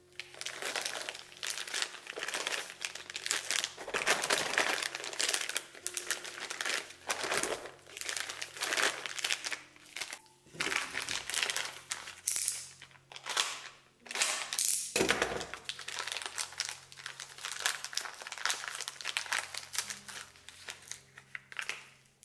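Thin plastic parts bags crinkling and rustling in quick, irregular crackles as gloved hands rummage through them and open one. One heavier thump about fifteen seconds in.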